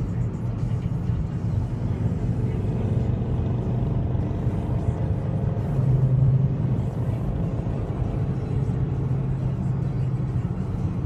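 Steady highway driving noise, tyre roar and engine hum, heard from inside a moving car, swelling for a moment about six seconds in while passing under an overpass. Music plays along with it.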